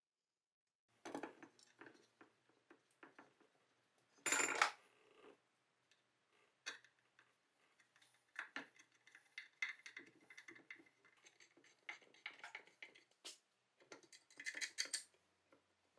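Small workshop handling sounds as a cast-iron bracket is fitted to a pine board. A sharp metal-on-wood clatter comes about four seconds in, followed by a scatter of small clicks and scrapes as screws are driven with a screwdriver, and a short scratchy burst near the end.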